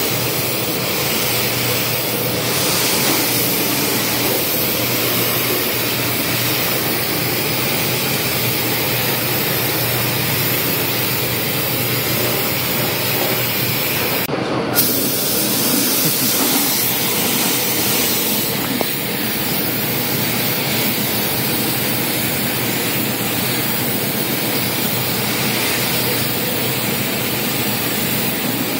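Compressed-air gravity-feed paint spray gun hissing steadily as silver paint is sprayed onto motorcycle bodywork, with a brief break near the middle.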